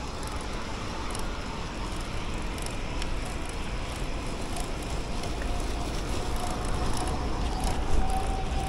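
Riding noise from an electric bicycle in motion: steady wind and road rumble, growing heavier in the second half, with a faint steady whine that gets louder toward the end.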